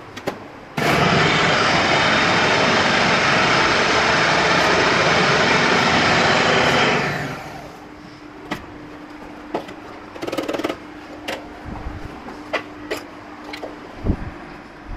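Electric food processor running at full speed, pureeing chopped tomatoes. It starts suddenly about a second in, runs steadily for about six seconds, then winds down. Clicks and knocks follow as the bowl and lid are handled.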